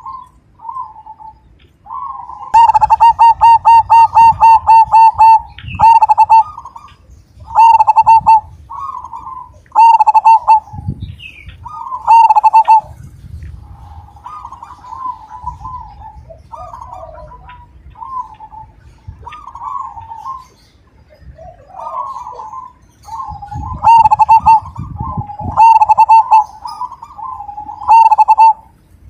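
Zebra dove (perkutut) singing loudly at close range. A rapid run of staccato coos comes about three seconds in, followed by loud cooing phrases about every two seconds. Softer coos fill the middle, and a last run of loud phrases comes near the end.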